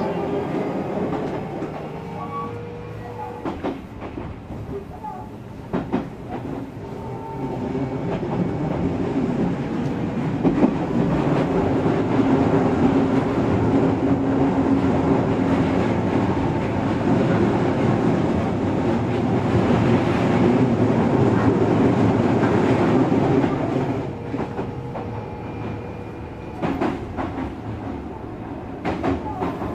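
Odakyu 3000 series electric train with totally enclosed traction motors and a Mitsubishi IGBT inverter running along the line: steady rolling noise with wheels clacking over rail joints. It grows louder about a quarter of the way in and eases off again near the end.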